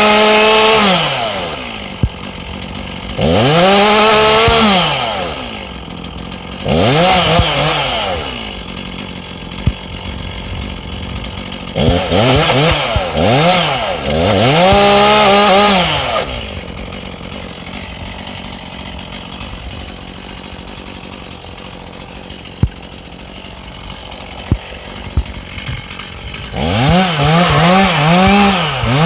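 Two-stroke chainsaw revving up and dropping back in repeated bursts of a second or a few seconds. It idles for several seconds about two-thirds through, with a few sharp knocks, then revs again near the end.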